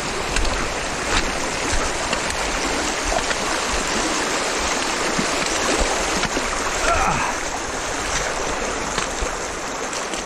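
A creek's flowing water with sloshing and splashing as someone wades across it on foot.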